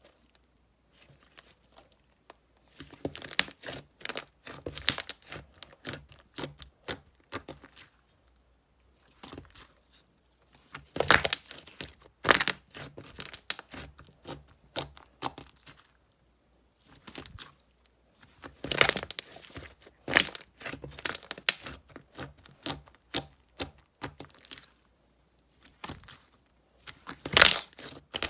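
Slime being squished and stretched by hand, giving dense runs of small crackles and pops. The runs last a few seconds each, with short quiet pauses between them.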